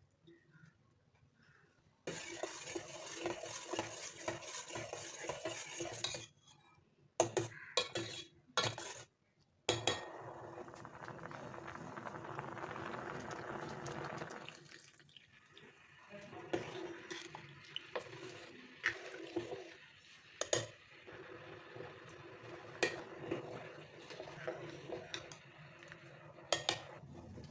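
Metal utensil scraping and clinking against a cooking pot during stirring, with sharp knocks scattered through and stretches of steady scraping and liquid noise.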